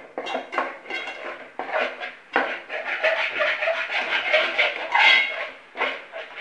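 Metal spoon scraping and clinking against the sides and bottom of a metal pot, stirring a thick masala in a run of irregular strokes.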